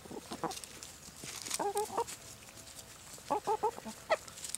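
Chickens clucking in two short runs of quick notes, about one and a half and three and a half seconds in, with a few sharp taps between.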